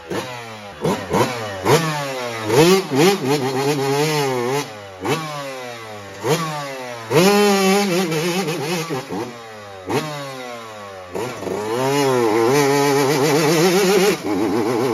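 Yamaha YZ dirt bike engine revved hard in repeated quick blips, its pitch sweeping up and down, then held high and steady for the last few seconds, spinning the rear tire in a smoky burnout on wet pavers.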